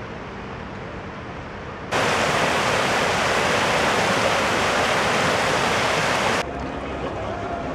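Shallow, fast-flowing stream rushing over rocks in white-water rapids: a steady rush that starts suddenly about two seconds in and cuts off suddenly some four and a half seconds later. Quieter outdoor background noise either side.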